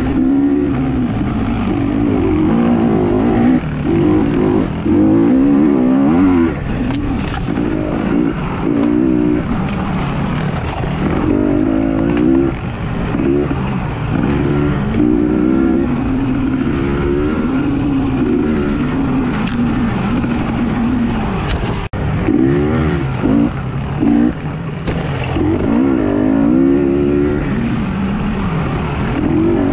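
Racing engines revving hard, their pitch climbing and dropping again and again as they accelerate and back off, with more than one engine heard at once at times.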